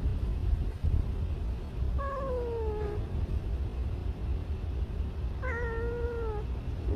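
A tabby-and-white stray cat meows twice, two drawn-out meows about a second long, each falling in pitch, over a steady low rumble.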